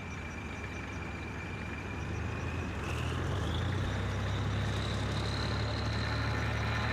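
Motor vehicle engine running under load, a low steady drone with a thin whine that rises in pitch and grows louder about three seconds in, as the vehicle speeds up.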